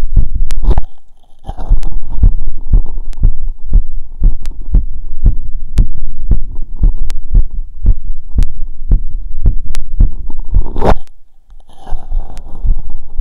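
Human heartbeat heard through a stethoscope after exercise: a quick, even run of low thumps about every half second. Twice, near the start and at about 11 seconds, the chestpiece scrapes as it is moved to a new listening spot, and the beat briefly drops away.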